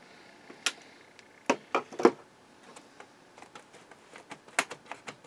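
Scattered sharp clicks and light knocks of hands and a tool handling parts inside an open Harman Kardon HK460i stereo receiver's metal chassis, with the loudest few close together about one and a half to two seconds in and another near the end.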